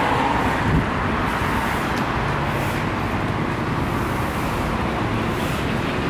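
Steady background noise with a heavy, uneven low rumble.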